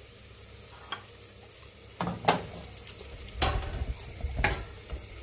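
Whiting fillets frying in oil under a steel lid, a steady faint sizzle, with a few knocks from the pan and lid as the lidded pan is grasped and shifted on the stove to drain off the excess oil.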